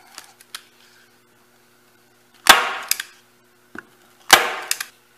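Hand-held brad pusher driving 7/8-inch number 18 brads through a screen-door stop: two sharp snaps about two seconds apart, each followed by a lighter click as the tool is lifted.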